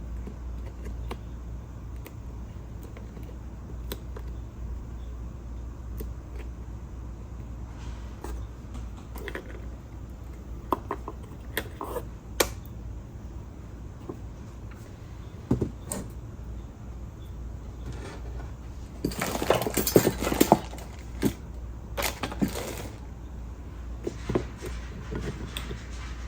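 Small hard objects being handled on a work table: scattered light clicks and taps, then a burst of rattling clatter about 19 seconds in and a few more knocks a couple of seconds later. A steady low hum lies underneath.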